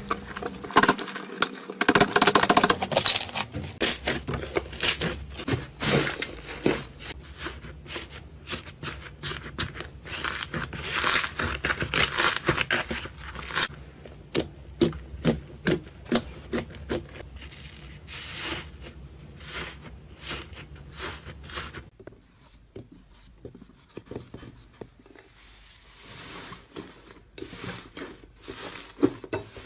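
Hands working slime, making a dense run of sticky clicks, crackles and squelches that turns sparser and quieter past the middle.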